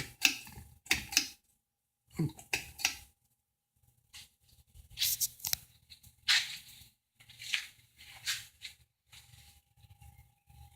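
A run of sharp clicks and rustling handling noises as the ceiling fan is switched on. About nine seconds in, the 1980s Satellite Baja ceiling fan's motor begins a faint steady hum on low speed.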